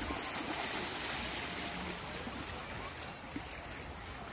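Small waves washing in over a sandy beach's shallows, a steady rushing noise that eases off a little toward the end.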